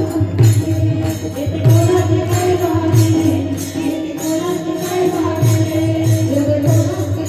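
Devotional kirtan music: a sustained melody over small hand cymbals (taal) struck in a steady rhythm, with a drum thudding underneath.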